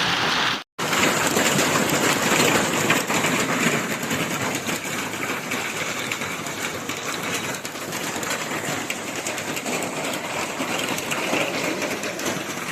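Heavy hail with no rain: a dense rattle of many hailstones striking hard surfaces. The sound cuts out briefly under a second in, then the rattle resumes.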